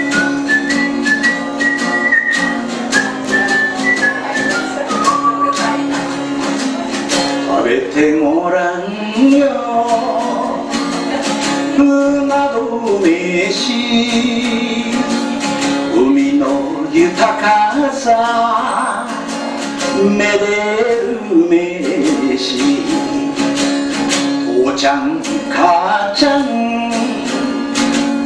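Live song: a strummed acoustic guitar with a high lead melody over it for the first few seconds, then a man singing over the guitar from about eight seconds in.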